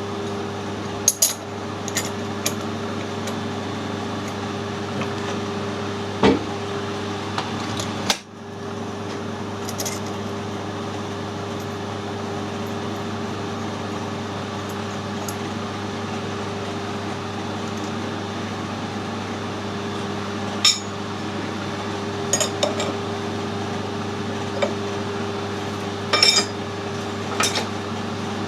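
Metal lathe running with a steady hum, while tools and metal parts give occasional light clinks and taps.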